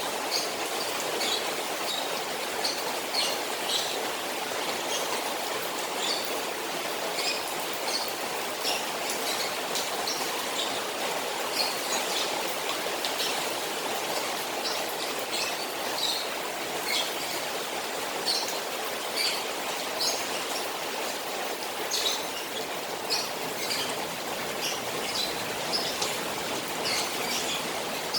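Rain falling on a koi pond with steady running water, a constant even hiss and patter. Short high chirps come and go irregularly throughout.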